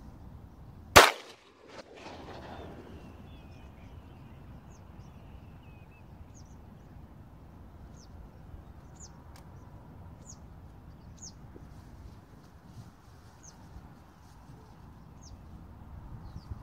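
A single shotgun shot about a second in, its report rolling away across the open flats. After it come short, high bird calls every second or two.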